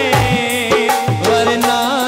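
Punjabi song music: a wavering melodic line over a drum beat, with deep booming drum hits that fall in pitch about once a second.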